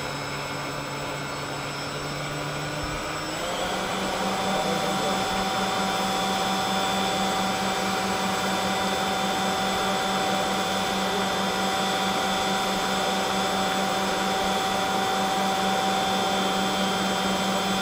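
Electric ducted fan units (70 mm, 11-blade) of a model jet airliner running with a steady whine. About three seconds in, the pitch steps up and the sound gets a little louder, then holds at that higher setting.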